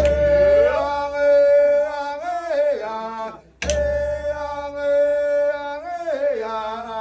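Background music: a melody of long held notes that bend downward at the end of each phrase, over a steady low bass. The phrase breaks off briefly about three and a half seconds in, then repeats.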